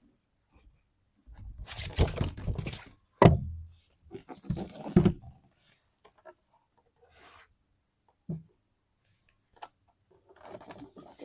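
Perfume packaging being handled in an unboxing: bursts of rustling, with a sharp knock about three seconds in and a short thud about eight seconds in.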